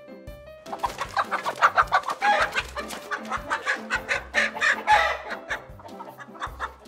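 Chickens clucking and squawking in a rapid, busy run that starts about a second in and dies away near the end, over background music with a steady beat.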